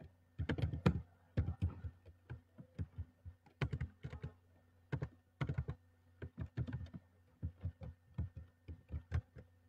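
Fingers typing on a phone's touchscreen: irregular soft taps with a dull thud, a few a second in short runs with brief pauses.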